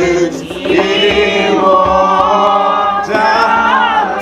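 Church congregation singing a hymn together, many voices holding long drawn-out notes.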